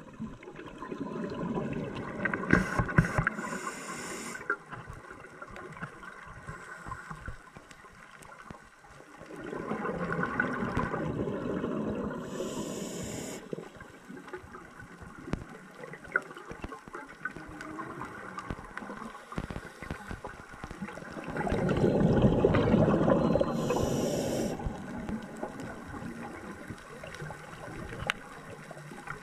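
Scuba diver breathing through a regulator underwater: about three slow breaths roughly ten seconds apart, each a loud rush of exhaled bubbles with a short hiss from the regulator.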